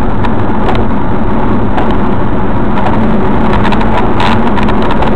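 Steady, loud road and engine noise inside a car's cabin at highway speed, with scattered light clicks.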